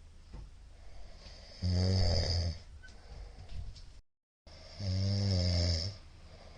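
A man snoring heavily during sleep: two loud snores about three seconds apart, each lasting about a second.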